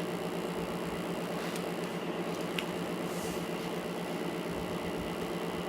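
Steady low electrical hum with hiss, with one faint tick about two and a half seconds in.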